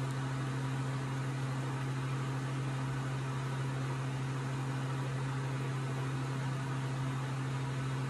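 A steady low hum with a fainter higher tone and an even hiss over it, unchanging throughout: background room noise.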